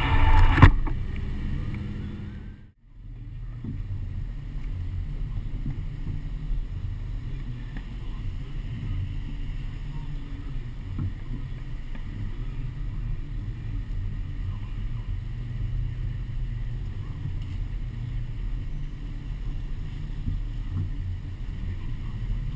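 Steady low rumble of wind and road noise picked up by a camera strapped to the outside of a moving truck. The sound drops out briefly about three seconds in, then returns unchanged.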